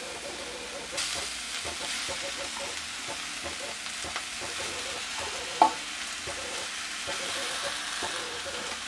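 Potato masala (onion, carrot, beetroot and peas with spices) sizzling gently in oil in a steel kadai while boiled potatoes are crumbled in by hand, with small scrapes and ticks. One sharp knock stands out about five and a half seconds in.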